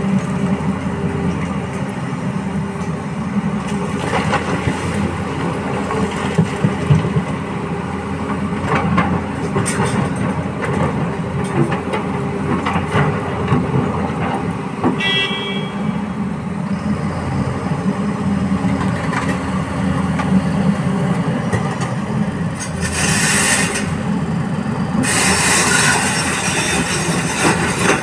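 Diesel engines of a hydraulic excavator and a Bharat Benz tipper truck running steadily, with scattered knocks and clatter of broken rock being dropped into the truck's steel body. A brief high whistle about halfway, and bursts of hiss near the end as the loaded tipper moves off.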